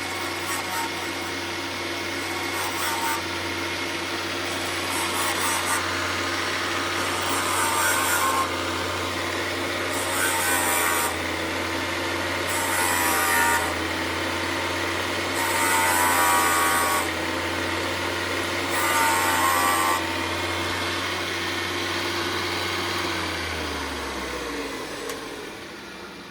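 Valve refacing machine making a 45-degree cut on a valve face. The motor hums steadily, and the grinding stone rasps in repeated passes every two to three seconds as the valve is swept in and out across it. Near the end the motor winds down.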